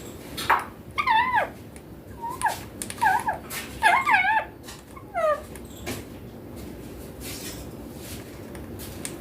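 Young Indian ringneck parakeet giving a run of short, squeaky calls that waver up and down in pitch, several in quick succession over the first six seconds, then falling quiet.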